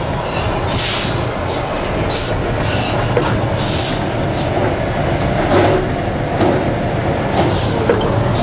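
Madill 120 grapple yarder running under load while yarding logs with the grapple, heard from inside the operator's cab: a steady, loud engine drone with several short hisses and a few clanks.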